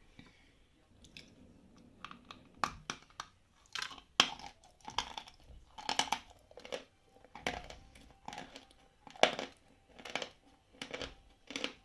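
A person chewing a mouthful of medium-density Khrapovsky chalk, with crisp, regular crunches about twice a second that begin a couple of seconds in.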